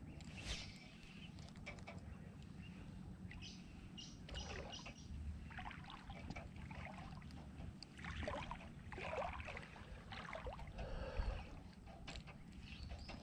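Legs wading through knee-deep tidal water: irregular sloshing splashes every second or two, with a few louder surges, over a steady low rumble.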